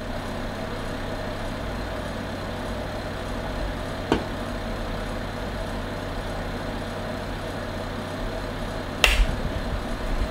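Steady background hum and hiss of room tone, with a faint click about four seconds in and a sharper knock about nine seconds in.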